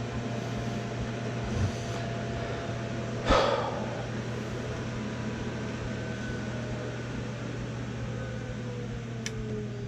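Heating equipment humming steadily, with a faint motor whine that slowly falls in pitch over the last several seconds, like a motor spinning down. A short hissing burst comes about a third of the way in and a sharp click near the end.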